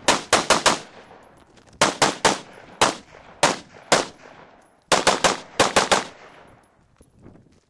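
Gunshots fired in quick strings: a run of four, then three, three single shots, a rapid run of about six and one more, each with a short echo trailing. The firing stops a little past six seconds in.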